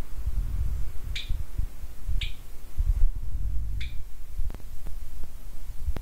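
Budgerigar giving three short, sharp chirps, about a second in, two seconds in and near four seconds, over a low, uneven rumble.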